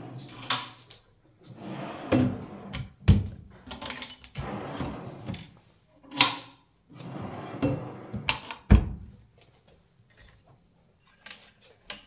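Wardrobe drawer run in and out on metal ball-bearing telescopic slides, three times: each time a rolling slide ends in a sharp knock as the drawer hits its stop or shuts. Then only a few faint clicks.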